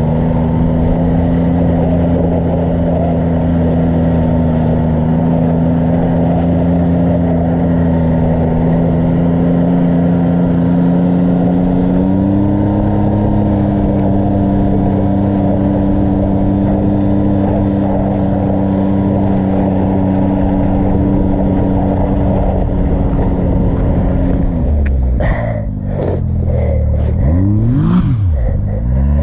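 Side-by-side UTV engine running at a steady speed while towing, over a continuous rushing noise. Its pitch steps up about halfway through, then rises and falls quickly several times near the end as the throttle changes.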